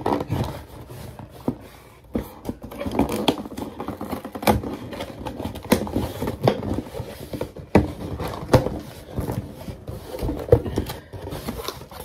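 Cardboard shipping box being handled and its flaps pulled open: irregular scraping, rustling and sharp taps of cardboard.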